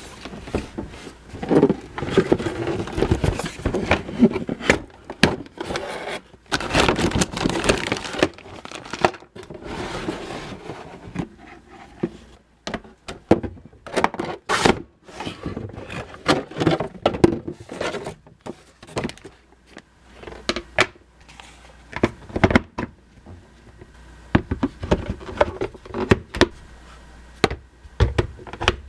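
Hands handling a Play-Doh playset and its packaging: irregular clicks, knocks, scrapes and rustling of plastic and cardboard.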